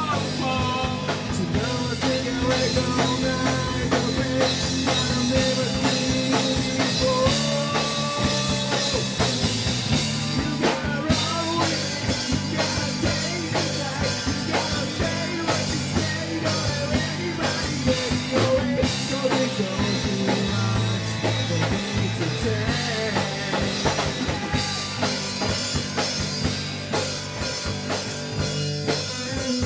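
Rock band playing live: drum kit with cymbals keeping a dense beat under bass and guitar, with a voice singing over the top.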